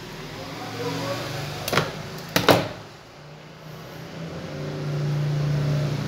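Two sharp metal clicks about two seconds in, from crimping pliers closing on a wire, over a steady low droning hum that grows louder toward the end.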